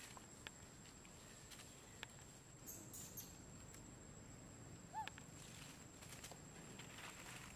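Faint rustling and light ticks of baby macaques scampering over dry leaf litter, under a steady high-pitched tone, with one short squeak about five seconds in.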